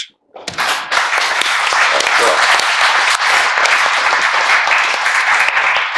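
Audience applause, starting about half a second in and holding steady.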